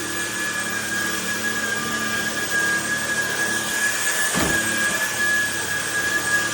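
Trucozie cordless stick vacuum running with suction on, giving a steady rushing hiss over a high, steady motor whine. A short knock sounds about four and a half seconds in.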